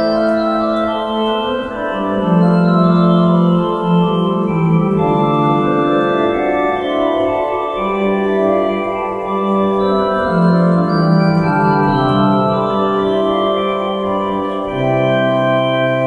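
Organ music: slow, sustained chords over a bass line that moves note by note, each chord held a second or two.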